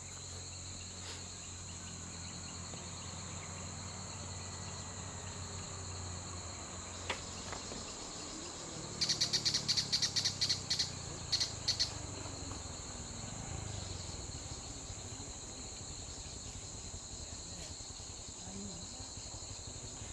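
Steady high buzzing of an insect chorus in roadside jungle. About nine seconds in, a run of loud rapid pulses at the same high pitch lasts about three seconds, and a low hum fades out during the first half.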